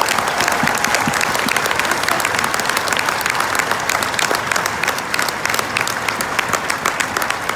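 Audience applauding: a large room of dense, steady hand clapping, with individual claps close by, easing slightly near the end.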